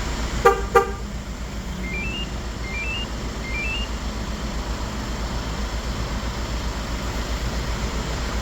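Hyundai Grand Starex van engine idling after a remote start, with two short horn toots about half a second in. These are followed by three short rising electronic beep chimes from the two-way remote-start alarm.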